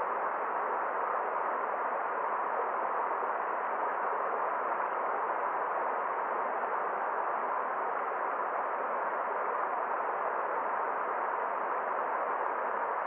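A forest stream's water rushing steadily, an even, unchanging noise without distinct splashes or other sounds.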